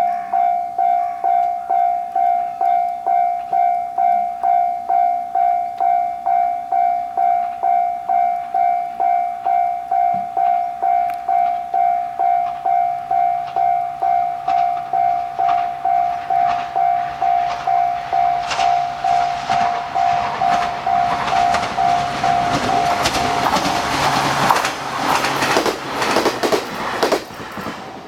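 Japanese level-crossing warning bell ringing in an even pulse about twice a second. About two-thirds of the way in, a JR Kyushu 817 series electric train comes up and runs through the crossing, its wheels clacking over the rail joints and growing louder until the train noise nearly drowns out the bell near the end.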